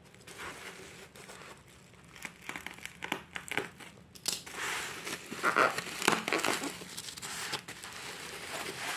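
Plastic bubble-wrap packaging crinkling and rustling as it is handled and unwrapped, with many small crackles, louder from about four seconds in.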